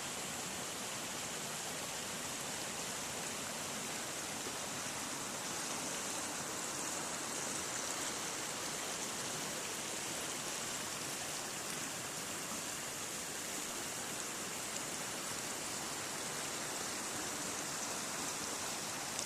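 Mountain-stream waterfall: water pouring over the cascade in a steady rushing hiss that does not let up.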